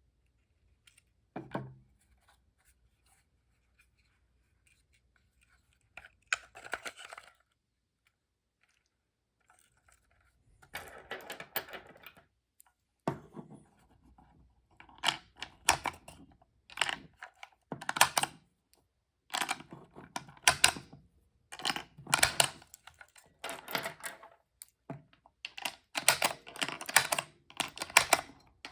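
A magazine loader pressing 5.7x28mm cartridges into a double-stack handgun magazine: a single thump near the start, then from about a third of the way in a string of short, sharp clicking and scraping strokes, roughly one a second, as rounds are loaded one after another.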